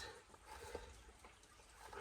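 Near silence: room tone with a couple of faint light clicks.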